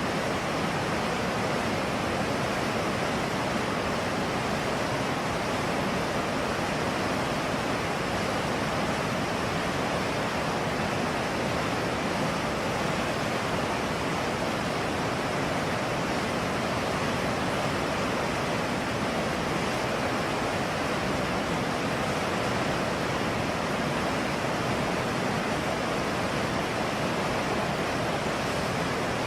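Trancura River water rushing, a steady, even roar of flowing water with no change in level.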